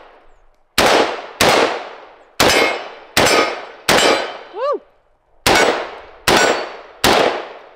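Century Arms BFT-47 AK rifle in 7.62x39 fired eight times in semi-auto at an uneven pace, each shot trailing off, with steel targets ringing on hits. A brief whining tone rises and falls just after the fifth shot.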